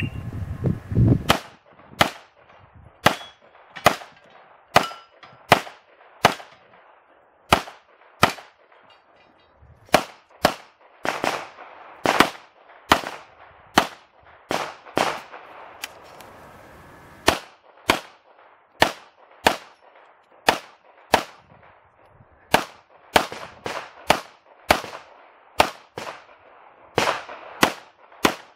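Semi-automatic pistol fired in a practical shooting course run: about three dozen sharp shots at one to two a second, with a pause of about two seconds near a third of the way in before the shooting picks up again.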